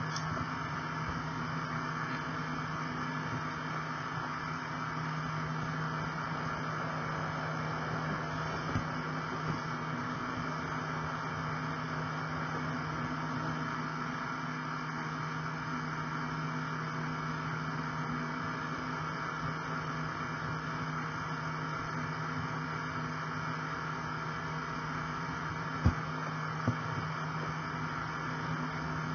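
Model train running steadily along the track, heard from on board: an even motor hum and wheel rumble, with a few sharp clicks from the wheels on the track about nine seconds in and again near the end.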